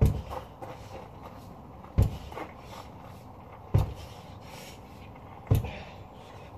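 Sledgehammer slamming down on a large tyre lying flat: four heavy thuds in a steady rhythm, one about every 1.8 seconds, each dying away quickly.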